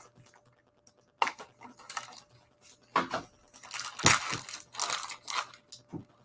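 Plastic or foil card packaging crinkling and rustling as it is handled, in several irregular bursts that are busiest about four seconds in.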